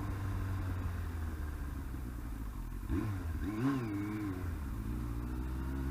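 Yamaha R1 motorcycle engine, an inline four, running steadily at low revs, with a brief rise and fall in pitch about three and a half seconds in.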